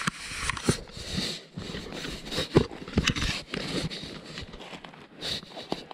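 Footsteps through wet fallen leaves and sticks on the forest floor: irregular crunching and rustling, with a few sharp snaps or clicks.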